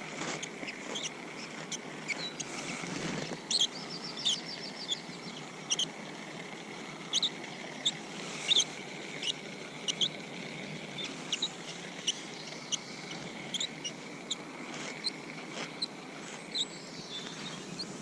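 Small birds chirping, short high calls repeated irregularly over a faint steady hiss of outdoor background, with a quick rapid trill about four seconds in.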